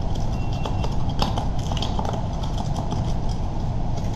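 Metal lifting hooks scraping and clinking against a steel grate that is packed with dirt underneath, in short irregular knocks. A steady low rumble runs underneath.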